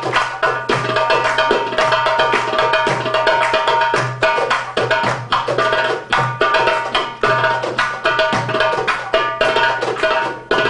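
Darbukas (Arabic goblet drums) played in a fast, dense rhythm: deep, ringing bass strokes from the middle of the head mixed with many sharp, ringing strokes near the rim.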